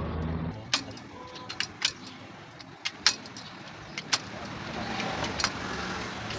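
Scattered sharp metallic clicks and clinks of hand tools and parts on a diesel engine's valve gear, about eight of them at irregular intervals, during removal of a rocker arm.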